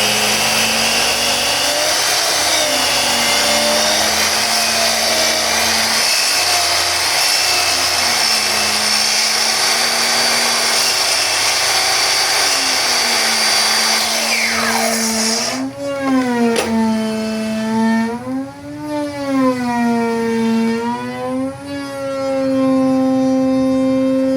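Electric miter saw running and cutting wood: for about fifteen seconds the motor hum wavers under load beneath a dense hiss of cutting. Then the hiss drops away and the motor hum swings up and down in pitch, holding steady and higher near the end.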